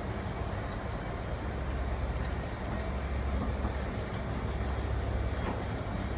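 Class 90 electric locomotive moving past, a steady low electric drone with track noise and a few faint clicks of wheels on rails.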